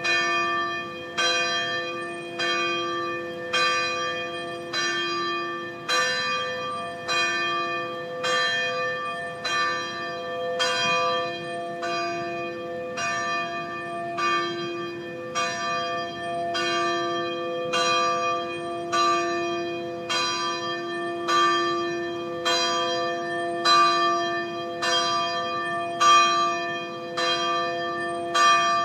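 Church bells pealing in an even, unbroken sequence, about one strike every three-quarters of a second, each bell ringing on under the next.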